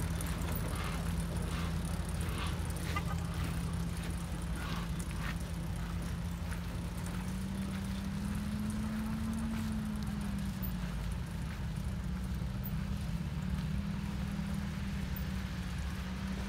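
1918 Mack truck's engine running steadily as the truck pulls slowly away, its pitch rising a little about eight seconds in and again near the end. A few faint clicks in the first few seconds.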